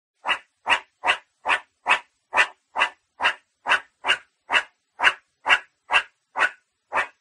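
Meerkat giving a steady series of short barking calls, about two a second, with no pause between runs.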